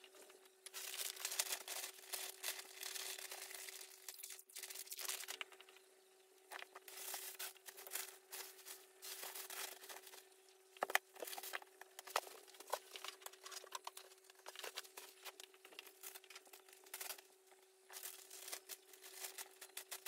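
Crinkling and rustling of packaging being handled, in irregular bursts with small sharp clicks, over a faint steady hum.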